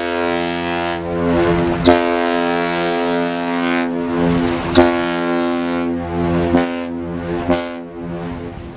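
Whistle of the Great Lakes bulk carrier Algolake sounding a salute: one long, deep, steady blast rich in overtones, with a few sharp clicks over it. It fades out near the end.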